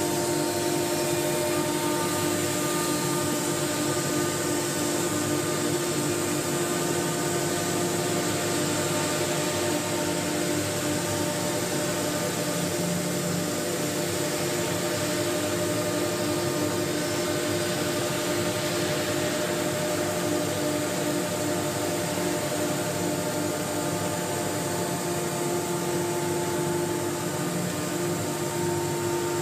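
GY-MS1525ACG automatic-tool-change CNC router running: a steady machine hum with several constant whining tones that hold the same pitch and level throughout.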